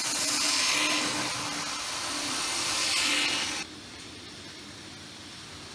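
Z-scale model ICE train running fast past close by, a hissing whir of its small motor and wheels on the rails that swells twice and cuts off suddenly about three and a half seconds in, leaving a quieter steady hiss.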